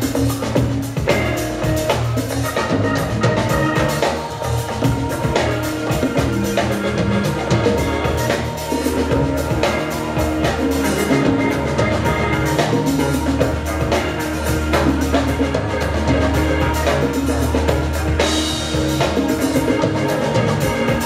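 Jam band playing live, with an electric bass and a drum kit, loud and without a break.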